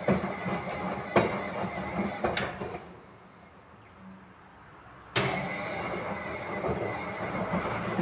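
Miele Professional 14 kg commercial washing machine in the wash phase, its drum turning and tumbling wet laundry with a churning rumble and a few knocks. The drum stops about three seconds in, then starts turning again about two seconds later.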